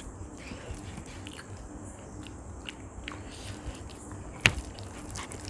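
Eating sounds: chewing and small mouth clicks over mouthfuls of soft, mushy rice eaten by hand, with fingers squishing rice on the plates. One sharp click about four and a half seconds in.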